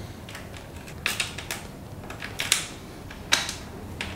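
Hands working at an electric mountain bike's frame-integrated battery and its lock, trying to get the battery out: about six irregular clicks and knocks.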